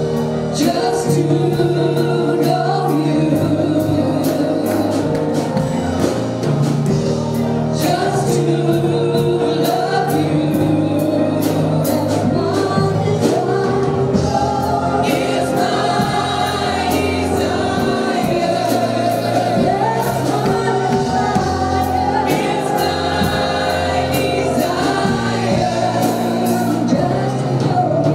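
Gospel praise song sung by a group of voices over a live band with drums and keyboard, running continuously.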